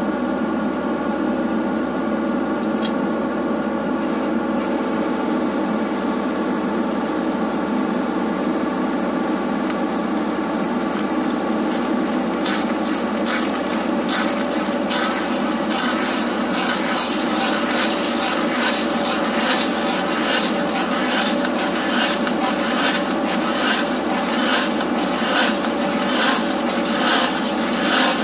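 Case SV280 skid steer's diesel engine running steadily under load while a hydraulic auger drive turns a tree planer bit down into a tree stump. From about halfway, a repeated scraping and chipping of wood under the bit grows louder as it cuts.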